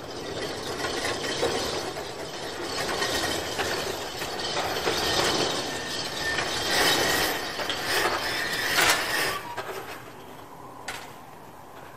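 Sectional overhead workshop door rattling and rumbling as it rises on its tracks, stopping about nine and a half seconds in once fully open.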